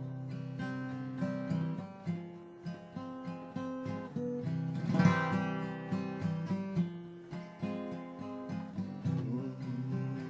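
Acoustic guitar playing a song's instrumental introduction, picked notes and strummed chords, with one louder strum about halfway through.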